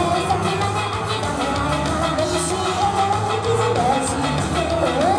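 Female idol group singing a pop song live, with a steady drum beat.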